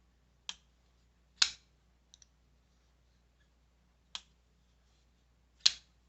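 Folding knife being worked open and shut: a series of sharp metallic clicks a second or more apart, the loudest about a second and a half in and again near the end, with a quick double tick just after two seconds.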